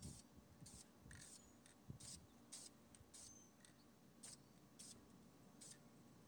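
Aerosol spray-paint can spraying in short, faint hissing bursts, about a dozen of them, each lasting a fraction of a second.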